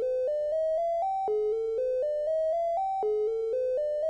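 Synthesized tones made from helium's seven visible emission lines, played one at a time as a rising seven-note run. The run repeats about every second and three quarters, about four notes a second.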